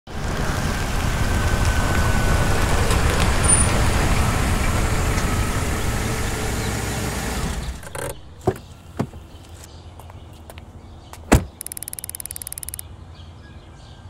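Ford Transit van driving slowly up the street, its engine and tyres running steadily, until the sound cuts off abruptly a little more than halfway through. After that come a few sharp clicks, one louder knock, and about a second of rapid clicking.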